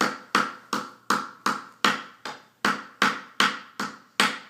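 Hammer striking a nail into a wooden kit piece, a steady run of about eleven ringing taps, two to three a second, with one short pause about halfway through.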